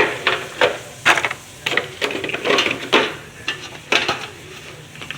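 Small metal and plastic pieces from a Bakugan tin clicking and clinking as they are handled, in irregular knocks, some with a short metallic ring.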